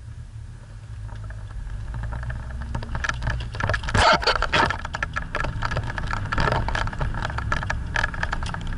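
Hyundai Galloper 4x4's engine pulling hard under load as it climbs a steep, rough dirt slope, its rumble growing louder. From about three seconds in, dense rattling and clattering from the vehicle jolting over the ruts, loudest around four seconds.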